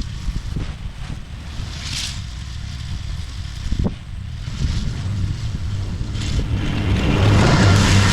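Exmark X-Series zero-turn mower running while it mulches tall grass, its engine hum growing louder toward the end.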